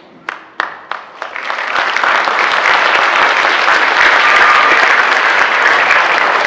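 School assembly audience applauding: a few scattered claps that build within about two seconds into full, steady applause.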